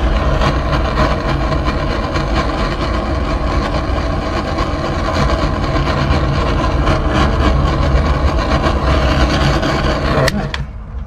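Snap-on heat gun running steadily, its fan blowing hot air to shrink heat-shrink butt connectors on bilge pump wiring; it shuts off near the end.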